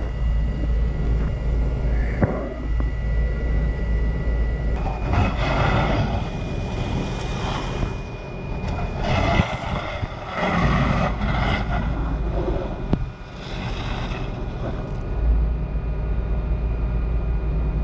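A fire engine's pump and engine running steadily to supply the hose lines, with wind rumbling on the microphone and several stretches of rushing noise from about five to fifteen seconds in.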